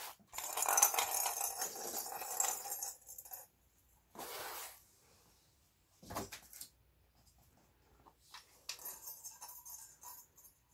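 Plastic roly-poly cat toy being handled with rustling and rattling, then set down with a single knock about six seconds in. Near the end comes a run of light clicks and rattles as a kitten bats the toy and the loose ball rattles inside.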